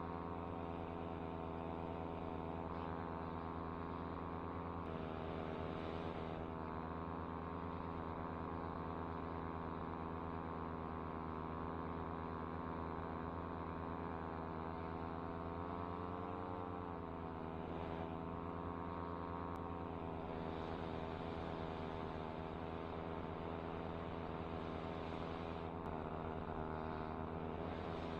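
Air Conception Tornado 280 paramotor's two-stroke engine and propeller running steadily in flight. Its pitch dips briefly and comes back up about two-thirds of the way through.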